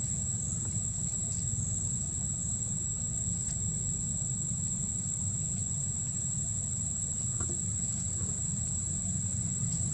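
Insects droning, a steady high-pitched whine that holds one pitch throughout, over a steady low rumble.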